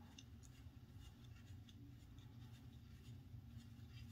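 Near silence with faint, scattered scratchy ticks as a 1.4 mm thread tap, turned by hand in a pin vise, cuts threads in a metal eyeglass hinge.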